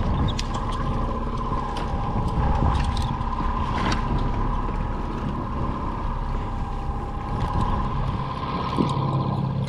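Boat's outboard motor running steadily at trolling speed, a constant hum under wind and water noise, with a few light clicks.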